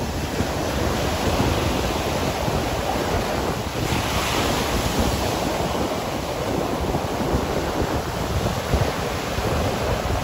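Ocean surf breaking and washing up on a sandy beach, with wind buffeting the microphone; one wave breaks more brightly about four seconds in.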